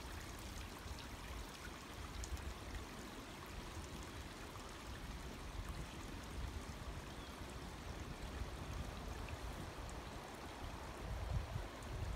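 Steady rushing outdoor noise with an uneven low rumble underneath.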